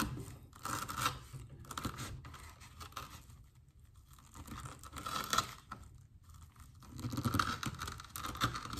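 A Benchmade Mini Crooked River knife's S30V blade sawing through 3/4-inch manila rope, the fibres tearing in a series of strokes with short pauses between them.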